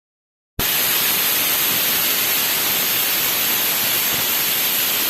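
Pressure cooker whistle blowing: a loud, steady hiss of escaping steam that starts abruptly just over half a second in. It is the sign that the cooker has reached pressure.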